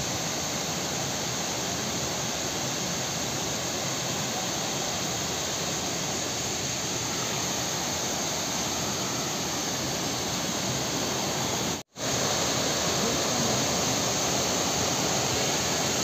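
Waterfall pouring down, a steady rushing roar of falling water. The sound cuts out for an instant about twelve seconds in.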